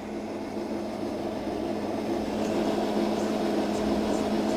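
Electric stand mixer motor running at low speed, its dough hook kneading a whole-wheat dough; a steady hum that grows slightly louder.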